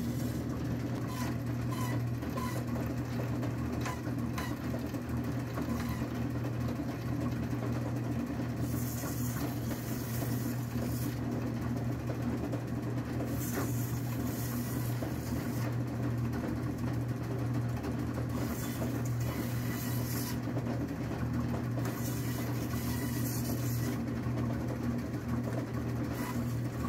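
Meat band saw running with a steady motor hum while it dices frozen chicken; a higher hiss comes in four times, about two seconds each, as the blade cuts through the meat.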